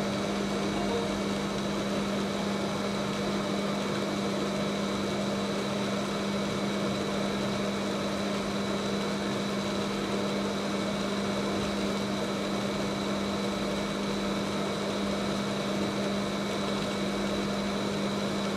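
Hot air rework gun's blower running steadily, a low hum with a faint high whine, as it blows hot air to shrink heat-shrink tubing onto a power lead.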